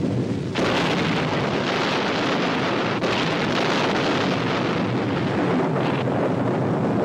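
Explosion sound effect: a sudden blast about half a second in and a second surge about three seconds in, then a long rushing rumble that eases off near the end, over a low vehicle rumble.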